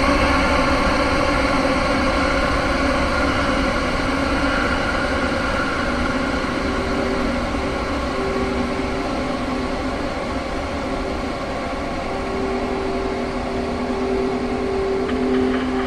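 Steady droning horror ambience: many held tones over a hiss, with two low held tones that come and go from about six seconds in.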